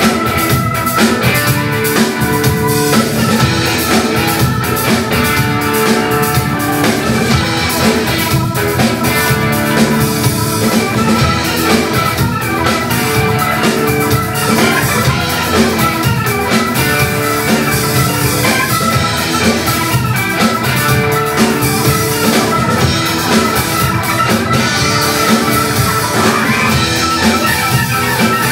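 Live rock band playing an instrumental passage with no vocals: drum kit keeping a steady beat under electric guitar, bass and keyboard.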